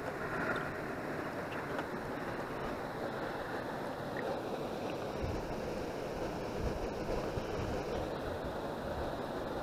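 Steady rush of wind and rippling river water, with gusts of wind buffeting the microphone from about five seconds in.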